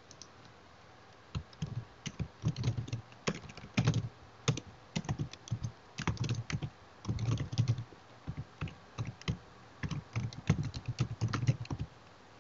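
Typing on a computer keyboard: irregular runs of key clicks with short pauses, starting about a second in and stopping just before the end.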